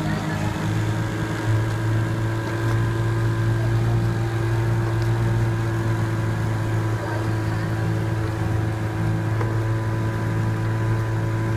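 Outboard motor of a coaching launch running steadily at low speed, a constant drone that settles about half a second in.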